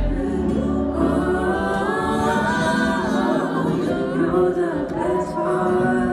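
Vocal music: singing with long held and gliding notes. A deep bass drops out just after the start.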